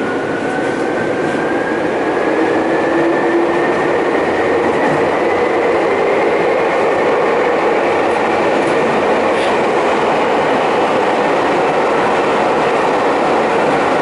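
Nagano Electric Railway local train heard from inside the passenger car, running with a steady rumble of wheels and car body. A thin whine from the drive rises slowly in pitch as the train gathers speed.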